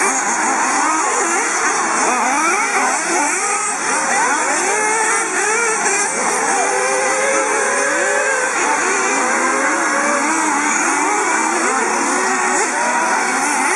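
A pack of 1/8-scale nitro RC buggies racing, their small engines revving up and down over one another in many overlapping rising and falling whines.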